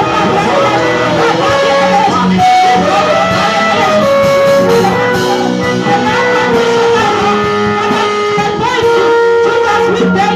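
Instrumental music with guitar, a melody of held notes over a steady bass line.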